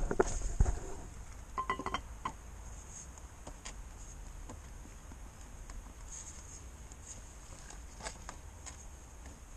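Metal parts clinking while a van's rear axle shaft is worked into a new wheel hub bearing: a few thumps in the first second, then a short run of ringing metallic clinks about two seconds in. After that come scattered light clicks over a steady low hum.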